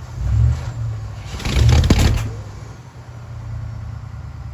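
Ford 410 FE V8 in a 1967 Mercury Park Lane being cranked slowly on a weak battery during a cold start, with a steady low rumble and two louder surges, the second about two seconds in. The engine is not starting.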